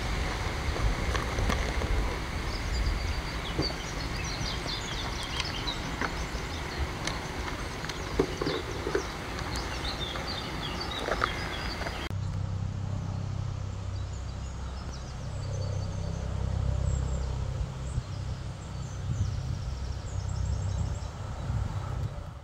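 Outdoor waterside ambience: small birds chirping over a steady low rumble, with a few faint knocks. About halfway through, the sound turns duller and the low rumble grows louder.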